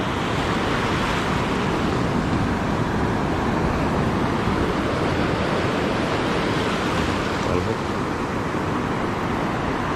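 Steady rush of surf breaking and washing up the beach, mixed with wind noise on the microphone.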